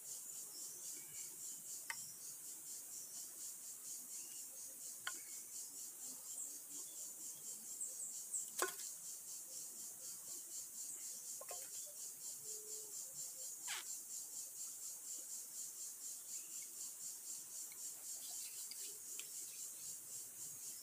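Steady high-pitched insect chorus with a fast pulsing shimmer. Over it come a few sharp clacks of green bamboo poles being handled and knocked together, the loudest a little before halfway.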